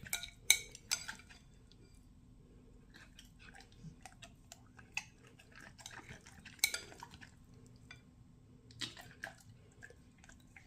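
Scattered light clinks and taps on a food dish, the loudest about six and a half seconds in.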